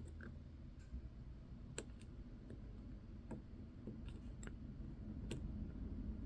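Faint, irregular clicks of small metal tools on a wristwatch movement, a few sharp ticks spread a second or so apart over a low background hum.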